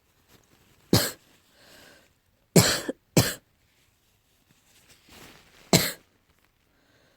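Four short, sharp coughs a second or two apart, with breaths drawn in between them: an allergy cough.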